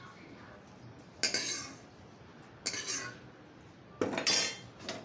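Metal kitchen utensils and cookware clattering three times, each a second or more apart; the last clatter is the longest and rings briefly.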